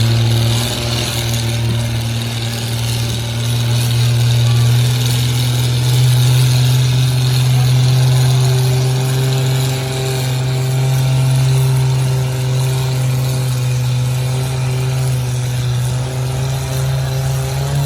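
Farm tractor engine working hard at a steady, nearly constant pitch while pulling a weight-transfer sled down the track, its pitch stepping up slightly about six seconds in.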